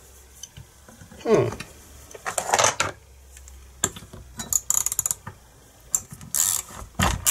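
Hand tools clicking and clattering in several short bursts, with ratchet-like clicking.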